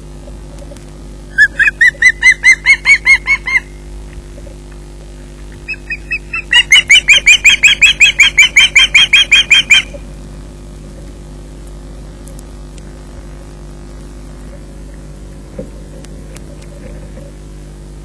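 Osprey calling in two series of rapid, high whistled chirps, about five notes a second. The first series lasts about two seconds and the second, longer one about four seconds. A steady low electrical hum lies underneath.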